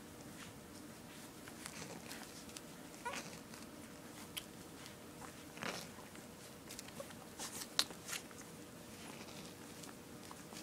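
Young puppies nursing: faint sucking and smacking clicks, with a few brief high squeaks, the sharpest clicks about eight seconds in.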